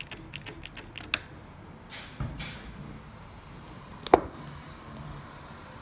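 Small clicks and taps from handling at a glass jar of liquid, with one sharp knock about four seconds in.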